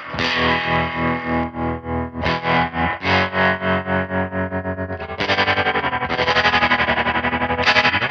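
Overdriven electric guitar chords played through a spring reverb and tremolo pedal, the sound pulsing evenly in volume with the tremolo. The playing gets louder and fuller about five seconds in.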